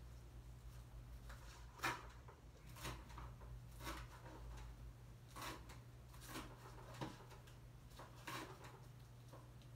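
Kitchen knife cutting fresh greens on a cutting board: slow, uneven strokes, each a short knock on the board, about one a second, over a steady low hum.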